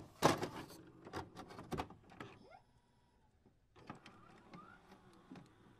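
Camera clicking: a run of sharp mechanical clicks in the first two seconds, the loudest just after the start, then a click about four seconds in followed by a few fainter ones.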